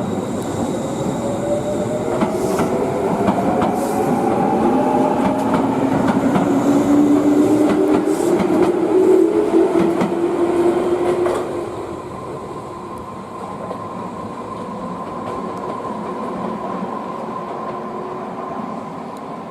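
Electric train running past with its motor whine rising in pitch as it accelerates. The sound is loudest around the middle, drops off suddenly about twelve seconds in, and a steady high tone lingers afterwards.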